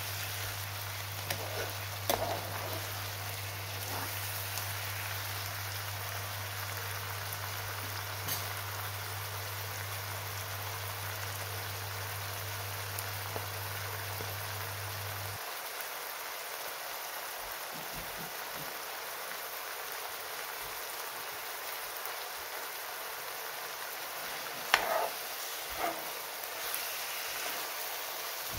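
Lamb liver and onions sizzling steadily in hot oil in a frying pan, with a few clicks of a metal spoon against the pan, the loudest pair near the end. A low steady hum cuts off about halfway through.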